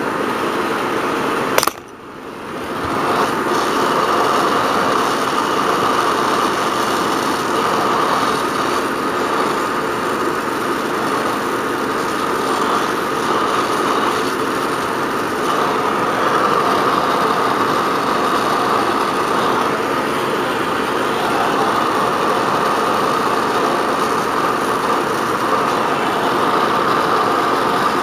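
Brazing torch flame hissing steadily as it heats a copper refrigerant line joint, after a sharp click and a brief drop in level about two seconds in.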